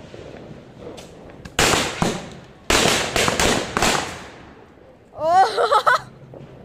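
Firecrackers going off on the ground in two quick volleys of sharp, crackling bangs, throwing sparks. Near the end comes a short, loud, high-pitched shout.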